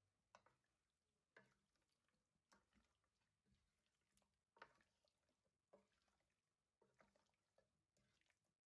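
Near silence, with faint short taps about once a second.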